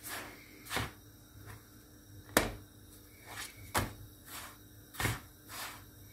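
A hand patting and pressing a lavash flatbread as it cooks in a nonstick frying pan, giving a series of soft pats and knocks about once a second, the sharpest about two and a half seconds in.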